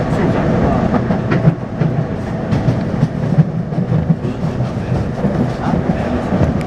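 Taipei Metro C301-type train with retrofitted propulsion running along the line: a steady rumble with scattered clacks from the wheels and track, and a faint steady tone from the traction inverter.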